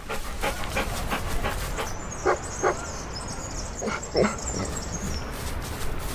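Cartoon dog sound effects: a pair of short barks about two seconds in and another bark or whine around four seconds, over a run of quick light taps.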